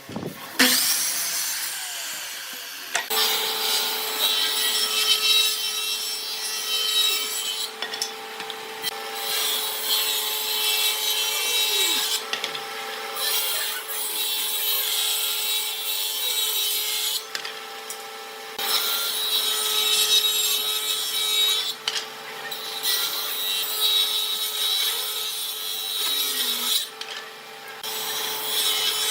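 Power tool working wood, running steadily with a constant motor tone under a loud gritty hiss, easing off briefly every few seconds between passes.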